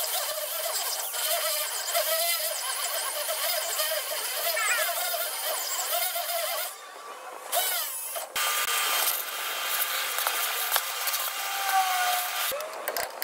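Corded hammer drill boring out steel ball-joint rivets, played back in ten-times timelapse, so the drilling sounds sped up, high and jittery. It drops away briefly about seven seconds in.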